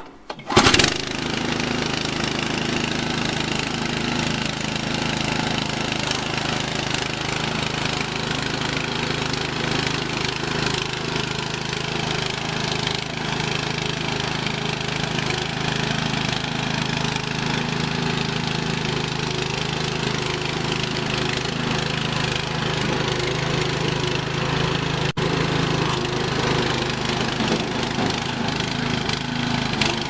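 Small engine of an ANT Power Barrow 300 motorised dumper, starting with a short loud burst about half a second in and then running steadily like a lawn-mower engine as the hydraulic-drive barrow is driven forward.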